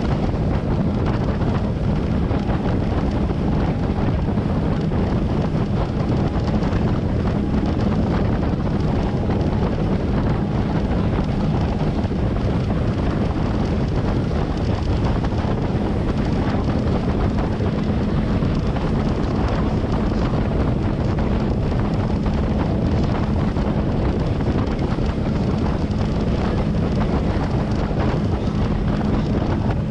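Wind buffeting the microphone on a boat underway, over the steady drone of its outboard engine.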